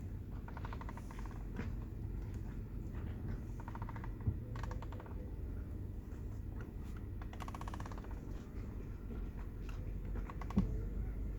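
Steering wheel of a 2010 Mazda3 making short bursts of rapid clicking, each under a second, about six times, over a steady low rumble.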